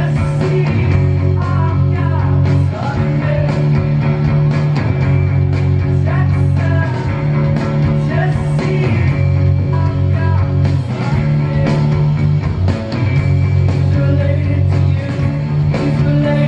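Loud live band music heard from the audience: a woman singing into a microphone over guitar, drums and a heavy, booming low end.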